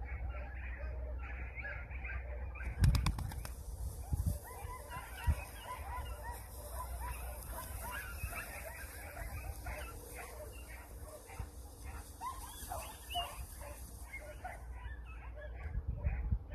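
Wind rumbling on the microphone, with many faint high chirps throughout. There is a sharp knock about three seconds in and a smaller one about five seconds in.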